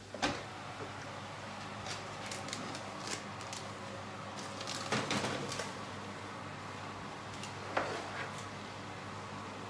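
Oven door pulled open with a click, then a steady hum from the hot oven, with scattered clicks, rattles and knocks as a tray lined with baking paper is handled at the open oven.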